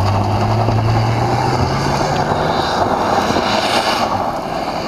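Jeep Cherokee engine pulling under load off-road, its pitch rising over the first two seconds or so, over a steady noisy rush.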